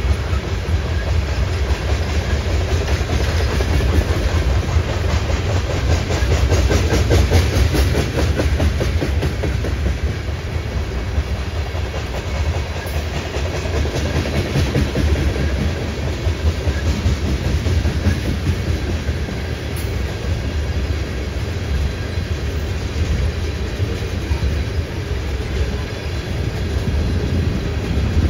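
Freight train cars rolling past in a steady rumble, their wheels clicking and clacking over the rail joints.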